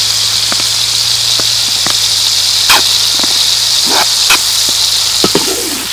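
Hot oil sizzling steadily in a metal wok, with a few sharp pops in the middle.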